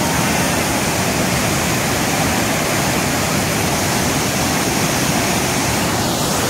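Water pouring over the rocks of Dhuandhar Falls on the Narmada River, a loud, steady rush of falling water.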